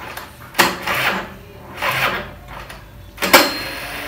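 Old Kinetic Honda scooter's electric starter cranking its two-stroke engine in three short rasping bursts without the engine catching. The owner thinks it will not fire on the starter because it has stood unused for many days with the choke off.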